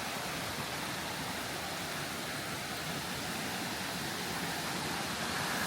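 Argyle Falls waterfall rushing, a steady hiss of falling water.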